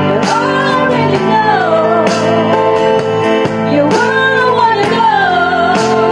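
Karaoke backing track with guitar, played loud through a small SDRD SD-508 portable speaker, with a voice singing the melody over it.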